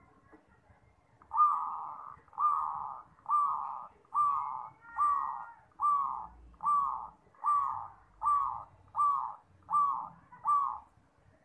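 Zebra dove (perkutut) cooing: a series of about a dozen short, even coos, roughly one every 0.8 seconds, starting about a second in.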